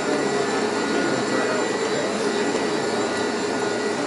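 Steady mechanical whirring of an open cable lift's hoist as the basket is lowered down the shaft, with a thin constant whine over the hum.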